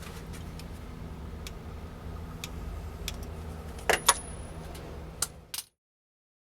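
Steady low engine hum, with a few sharp metallic clinks, two close together about four seconds in and two more shortly after. The sound then cuts off abruptly to silence.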